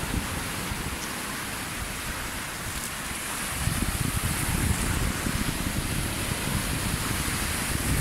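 Surf washing and foaming over a shallow rocky reef, with wind rumbling on the microphone; it grows louder about three and a half seconds in.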